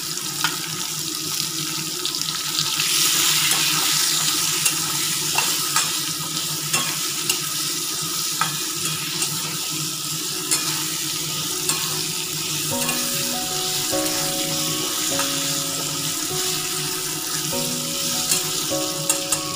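Potato and radish cubes sizzling in hot oil in a kadai, with a metal spatula scraping and knocking against the pan as they are stirred. The sizzle grows louder a few seconds in, and a soft background melody comes in about two-thirds of the way through.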